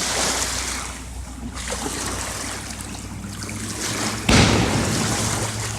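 River waves from boat wakes washing and lapping against the bank, with a sudden louder burst of noise about four seconds in.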